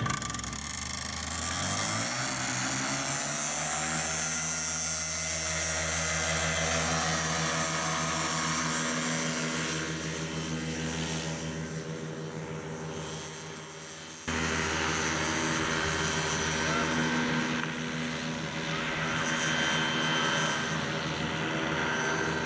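Paramotor engine and propeller revving up to full throttle for a takeoff run, then running steadily at high power. About fourteen seconds in it cuts suddenly to another paramotor running at full power.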